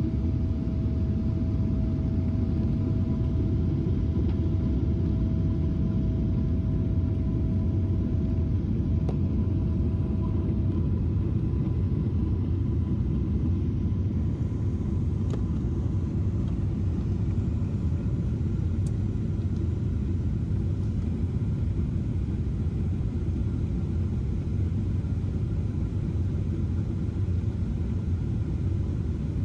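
Steady low rumble of engines and airflow inside the cabin of a Boeing 777-300 on approach, heard at a window seat over the wing. A faint steady whine fades out about a third of the way through.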